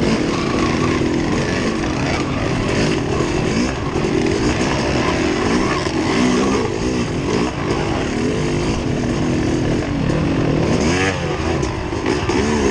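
A motor vehicle's engine revving up and down again and again, its pitch rising and falling every second or so, with a steady noisy rumble underneath.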